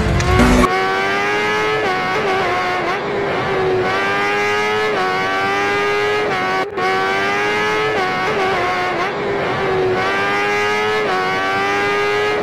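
Dubbed race-car engine sound effect running at high revs and shifting up through the gears, the pitch climbing and then dropping about every one and a half seconds, with a brief break about halfway.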